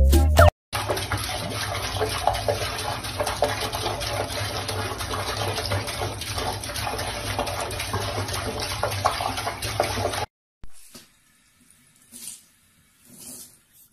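Water running from a tap and splashing into a basin, a steady rush that stops abruptly about ten seconds in.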